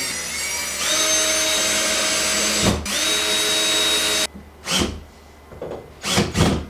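Electric drill running against a wall: it speeds up to a higher whine about a second in, cuts out briefly near three seconds, runs again and stops just over four seconds in. A few short knocks and handling bumps follow, the loudest near the end.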